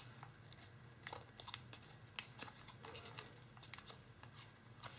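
Faint crinkling and small irregular ticks of tissue foil (tissue paper laminated with kitchen foil) being folded and pressed between the fingers through many layers.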